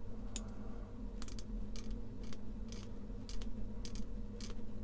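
Hobby knife blade scraping and paring a sprue nub off a small plastic model-kit part: a string of short, dry scratchy clicks.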